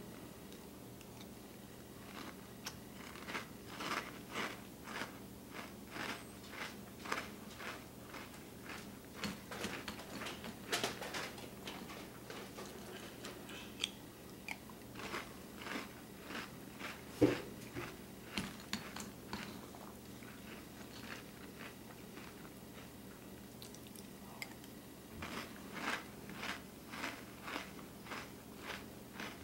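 A person chewing a mouthful of crunchy Cinnamon Toast Crunch cereal, with crisp crunches at about two a second. There is one sharp knock, the loudest sound, a little past the middle. The crunching pauses for several seconds, then starts again near the end.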